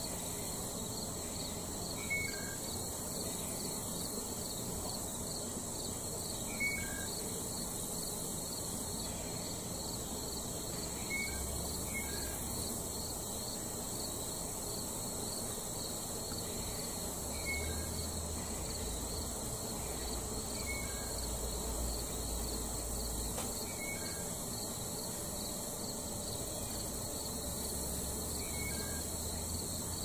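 Outdoor ambience of insects trilling steadily, with a brief two-note falling bird chirp every four or five seconds. A faint low rumble comes and goes partway through.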